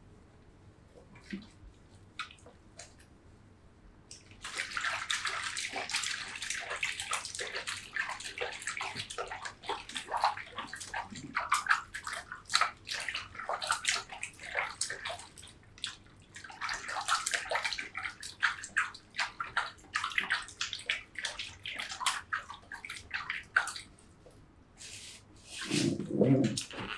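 Water running and splashing. It starts about four seconds in, eases off briefly about halfway through, then resumes and stops shortly before the end.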